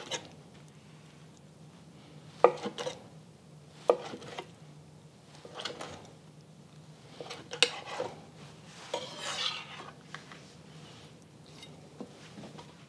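Chef's knife slicing through poached chicken and tapping down on a cutting board, a sharp knock every second or two. A brief scrape about nine seconds in.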